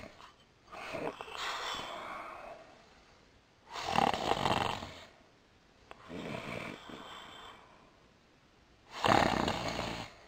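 Snoring of a sleeping animated character, in two slow breath cycles, each a softer breath in followed by a louder snore about five seconds apart.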